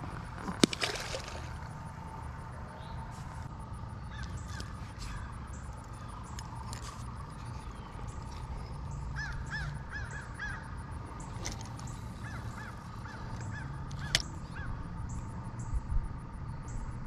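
Faint bird calls, short chirps in small runs, over a quiet outdoor background, with a few sharp clicks from handling a spinning rod and reel. The loudest clicks come shortly after the start and about three seconds before the end.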